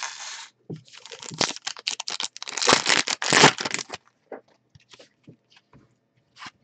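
Foil trading-card pack wrapper being torn open and crinkled, loudest about three seconds in, followed by faint ticks as the cards are handled.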